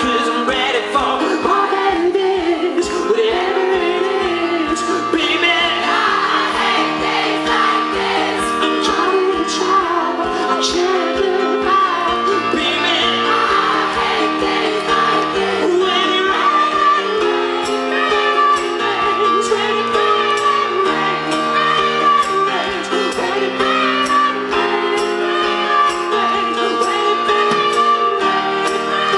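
Live pop song: a male singer singing into a microphone over a band, with sustained chords and a steady beat.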